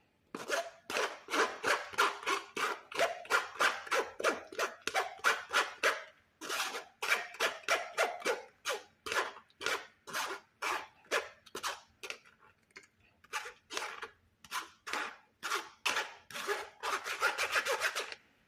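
Quick rhythmic scraping strokes, about two to three a second, with short breaks about six and twelve seconds in and a faster run near the end.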